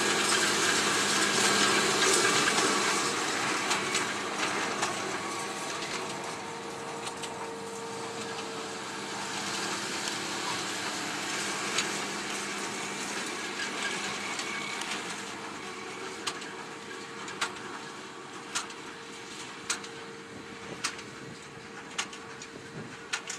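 A Fendt tractor pulling a CLAAS large square baler through hay: the engine and baler run with a steady hum that is loudest at first and fades as the machine moves away. From about two-thirds of the way in, sharp knocks come regularly about once a second from the baler's plunger packing hay.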